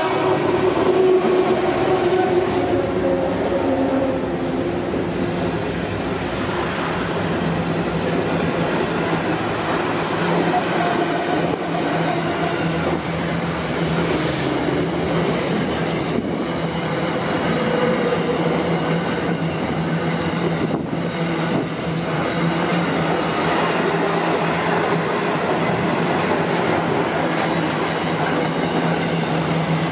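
Freight train passing close by: the lead GWA class diesel-electric locomotive goes by in the first few seconds, its engine tones falling in pitch, then a long line of container wagons rolls past with steady wheel and rail noise.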